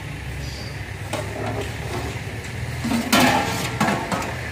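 Metal clattering of a big ladle and lid against a large aluminium cooking pot, a cluster of strokes about three seconds in and another just before the end, over a steady low rumble.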